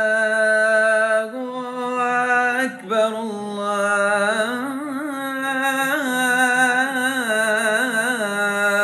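A man singing the call to prayer (adhan) in the Makkah style, unaccompanied. He holds one long steady note, steps up slightly after about a second, then weaves quick wavering melismatic turns around the note without a break.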